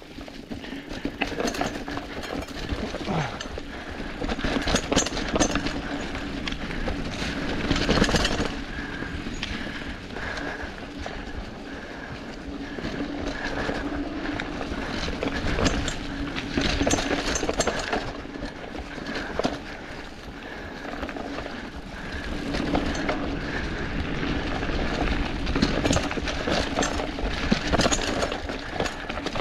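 Mountain bike rolling along a dirt trail strewn with dry leaves: steady tyre noise with the bike rattling over bumps. There are louder knocks several times.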